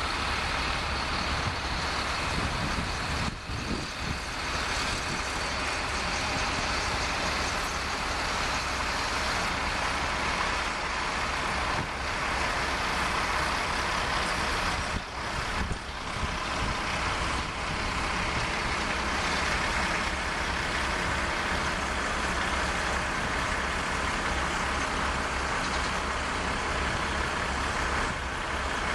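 Heavy diesel engines of a semi truck and farm tractors running together as a steady mechanical drone, with two brief dips in level.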